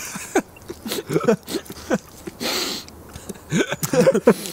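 Indistinct voices of men chatting, with a short breathy noise about halfway through.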